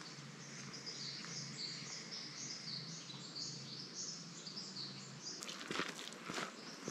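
Forest birds calling with a quick run of repeated high chirps. Footsteps start about five and a half seconds in.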